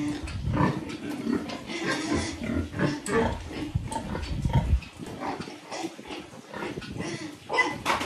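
Breeding sow grunting in short, irregular grunts, with a low rumble under the first few seconds.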